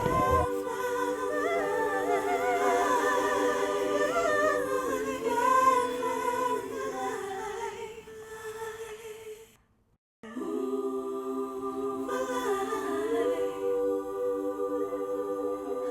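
Wordless a cappella singing: voices holding a slow melody over a steady lower note. It cuts out briefly about ten seconds in, then picks up again.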